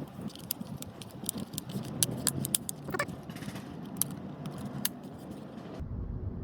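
Quick light clicks and rattles of hard plastic parts being handled and fitted: cover plates going onto a rear-view mirror mounting bracket. Near the end this stops abruptly and gives way to a steady low hum.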